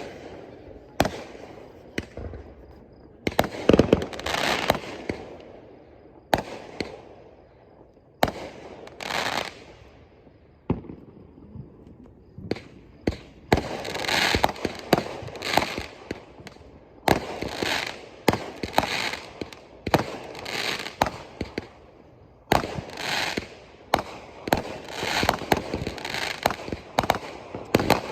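Fireworks going off: a string of sharp bangs, each trailed by crackling, spaced out at first and then coming thick and fast for the second half.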